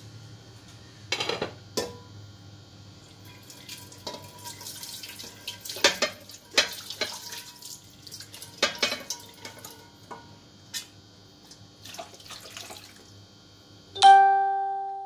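Dishes and cookware clattering at a kitchen sink, with splashes of water. Near the end a metal pot is knocked and rings out with a clear tone that fades over about a second.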